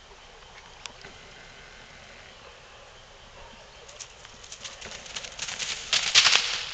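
Dry straw mulch rustling and crunching underfoot in quick, crackly bursts. It starts about four seconds in after a quiet stretch and is loudest near the end.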